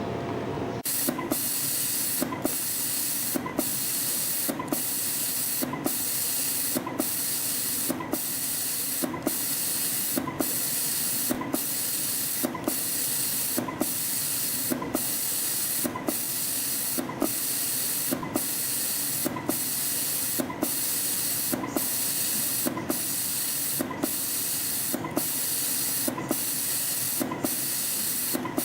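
CNC spring coiling machine running, forming tiny springs from 0.2 mm wire: a steady loud hiss that breaks off briefly with a click about every two-thirds of a second, one break per spring cycle. The hiss starts about a second in.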